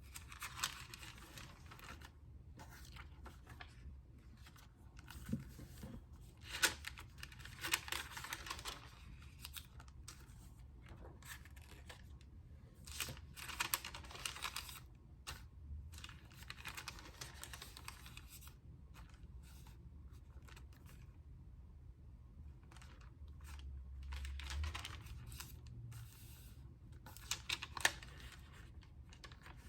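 Thin, crisp onion skin paper pages being turned one by one in a journal: a dry rustle every few seconds, with sharp little clicks and taps as the pages are handled.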